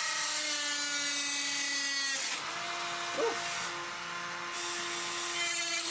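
Dremel rotary tool cutting into a PC case, its motor whine shifting in pitch under load over a grinding hiss. About two seconds in the grinding noise drops away and the motor runs on at a steadier pitch.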